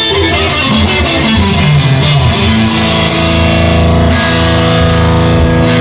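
Instrumental stretch of a rock song without singing: guitar and drums, with a low note sliding down about two seconds in and held notes after that.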